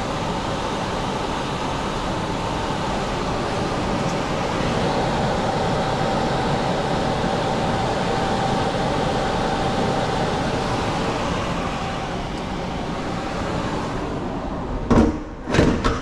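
Mobile home air handler's indoor blower running steadily: a hum of moving air with a faint steady whine. Near the end, two knocks as the closet door is shut.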